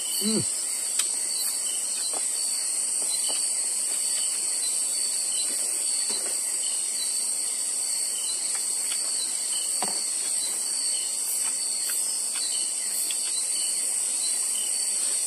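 Steady high-pitched chirring of a chorus of crickets and other night insects. A short vocal hum comes right at the start, and a few faint clicks are scattered through.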